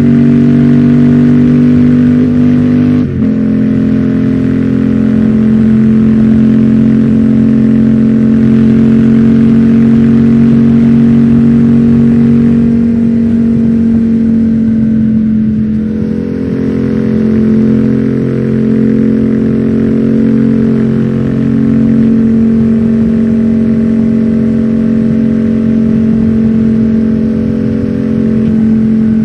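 2019 Yamaha MT-07's parallel-twin engine running through an Akrapovic full exhaust system while the bike cruises at a steady speed. The engine note breaks briefly and shifts about three seconds in, then rises and falls gently with the throttle.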